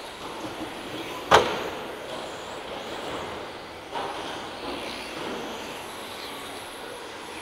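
1/10-scale electric touring cars with 17.5-turn brushless motors running laps on an indoor track, a steady whirring hiss of motors and tyres. About a second in a single sharp knock rings out in the hall, with a lighter knock near four seconds.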